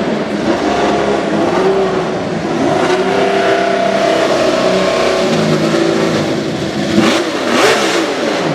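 Honda RA301 Formula One car's V12 engine running hard at high revs, its pitch repeatedly climbing and stepping back. About seven seconds in there are two brief loud bursts, and then the pitch falls steeply.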